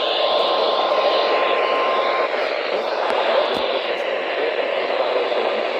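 NOAA Weather Radio receiver playing through heavy static hiss, with the faint steady 1050 Hz warning alarm tone under the static that cuts off about two seconds in; the tone is the Emergency Alert System attention signal opening a Winter Storm Warning.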